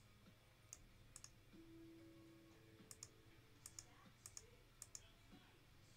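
Faint, sharp clicks, most in quick pairs, about half a dozen times over near silence.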